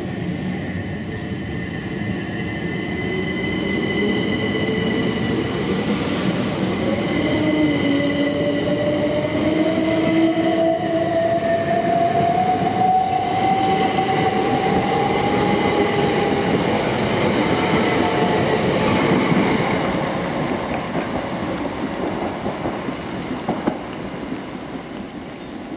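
Two coupled Class 377 Electrostar electric multiple units pulling away. Their traction motors whine and rise steadily in pitch as the train accelerates, over the rumble of the wheels on the track. The sound grows louder, then fades over the last several seconds as the train draws away.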